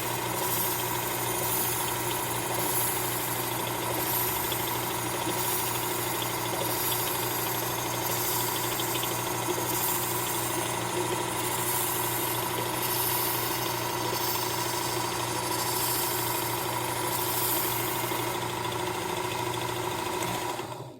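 Work Sharp Ken Onion knife and tool sharpener running steadily with its blade grinding attachment, the abrasive belt grinding inside the scallops of a serrated bread knife with a hiss that swells and fades every second or two. The motor shuts off near the end.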